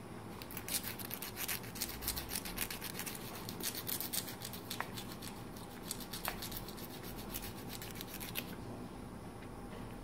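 Nail file rasping back and forth on an African grey parrot's claws, a quick run of short scratchy strokes that stops about eight and a half seconds in.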